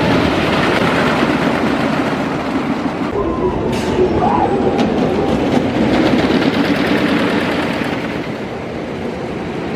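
Ghost Rider wooden roller coaster train running along its track: a loud, steady rumble and clatter of the wheels on the wooden track, with a few faint rider voices.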